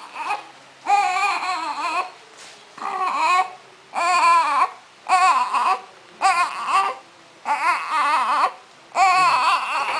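Newborn baby crying in a string of short, wavering wails, about one a second.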